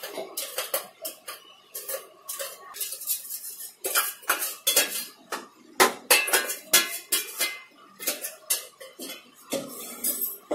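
A metal spoon scraping and knocking inside a stainless-steel mixer-grinder jar, clearing ground biscuit powder out into a bowl. It makes an irregular run of clinks and scrapes.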